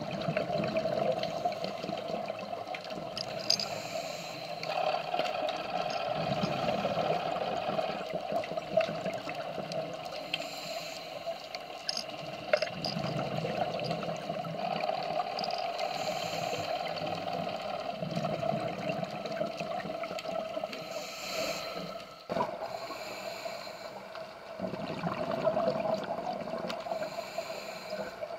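Underwater sound of a scuba dive: a steady watery hum, with the diver's breathing on the regulator and a rush of exhaled bubbles every few seconds. The sound breaks off sharply for a moment about three-quarters of the way through.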